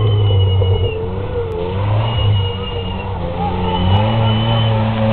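Off-road 4x4's engine revving hard as it drives through mud, its pitch rising and falling with the throttle.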